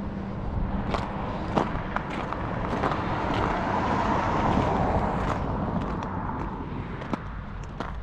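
A road vehicle passes: tyre and engine noise swells to a peak about halfway through, then fades, over a steady low rumble. Scattered sharp clicks and crunches sound throughout.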